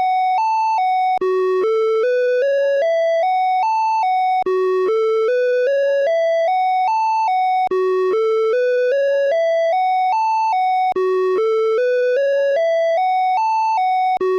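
Electronic emergency-alert tone, the Åland Islands EAS alarm, looping. A run of clean beeping tones steps up in pitch, about three notes a second, then drops back and starts over roughly every three seconds.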